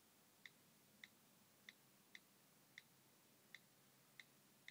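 iPhone 3G on-screen keyboard clicks, one per key press as text is typed: about eight short ticks, roughly every half to three-quarters of a second.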